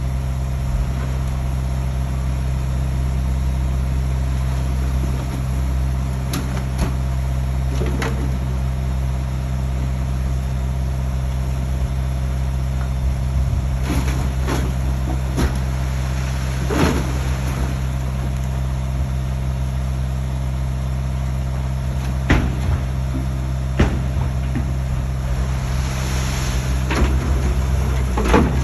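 Diesel engine of a heavy construction vehicle (dump truck or bulldozer) idling steadily, with occasional short knocks or clanks over it.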